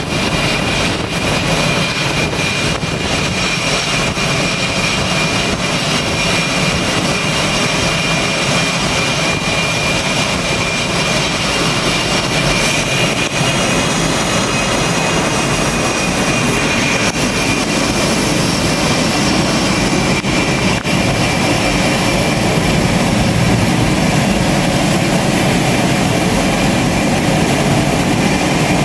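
F/A-18 jet engines running on a carrier flight deck: a steady loud roar with a high whine.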